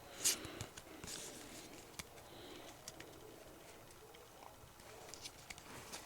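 Pokémon trading cards and their opened booster-pack wrapper being handled: a few soft swishes and light ticks, the clearest about a third of a second in. Under them is a faint low wavering sound.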